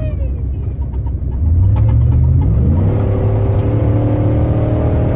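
Pre-runner race truck's engine running under a heavy low rumble, revving up about a second and a half in and then holding high revs as it drives through whoops, heard from inside the cab.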